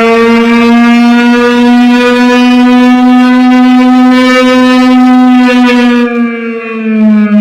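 Music played loud through an RCF PA speaker system: one long held electronic note with many overtones, its pitch drifting slightly up and then sliding down about six seconds in.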